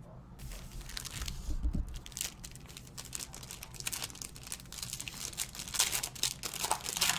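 Plastic packaging crinkling and tearing by hand: a dense run of short crackles that grows louder and busier from about two seconds in, typical of wrap being stripped from trading-card boxes and packs.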